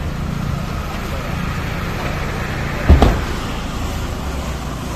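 Car engine idling with street traffic around it, and one loud thump about three seconds in.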